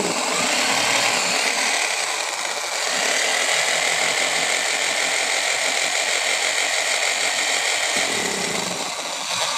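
Tiedao electric demolition hammer running continuously under test, a loud steady mechanical racket that starts abruptly, with its internal bearings and carbon brushes freshly replaced.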